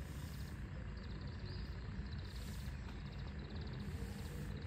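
Outdoor dawn ambience: a steady low rumble with several short bursts of rapid, high-pitched trilling from small birds.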